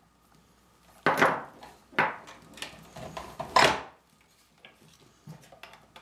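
Snake cable and its XLR connectors being handled. The cable coils rustle and scrape three times in the first four seconds, the third time loudest, followed by a few faint connector clicks.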